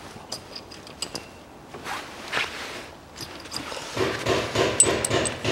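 Light metallic clicks and clinks of tools and parts being handled at the engine's timing-belt end, with a louder stretch of clattering and handling noise from about four seconds in.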